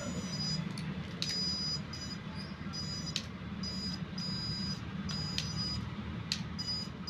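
Mini RC camera car giving high-pitched electronic beeping in repeated on-off runs as it is driven back and forth, over a low steady hum, with a few sharp clicks in between.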